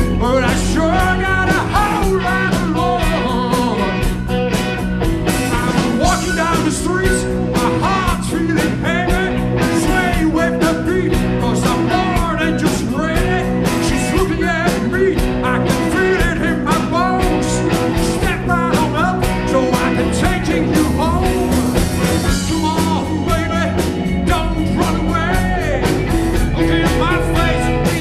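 Live rock band playing a bluesy rock-and-roll song: a male lead voice sings over electric guitar and electric bass, with a steady beat.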